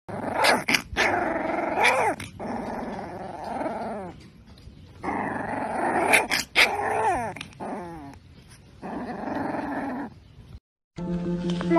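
A very young puppy growling and yipping in several short bouts during play-biting at a hand, with high squeaky cries mixed into the growls.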